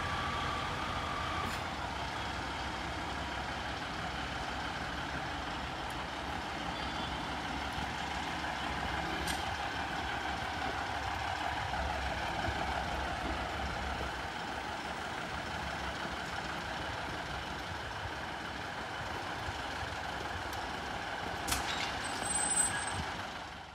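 Network Rail Class 950 track-recording unit's underfloor diesel engines idling steadily, with a low rumble and a steady hum. A short steady tone sounds in the first second and a half, and a couple of sharp clicks come near the end.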